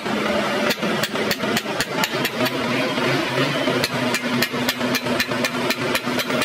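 Hammer striking a chisel into the edge of a truck radiator's tank where it joins the core: a quick, even run of sharp metal-on-metal strikes, about four a second, starting about a second in. A steady low hum runs underneath.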